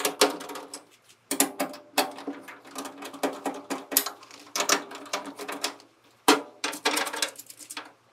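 An 11/32 nut driver turning screws out of the dispenser holder brackets in a steel cabinet: runs of small metallic clicks and scraping in bursts of about a second, with short pauses between.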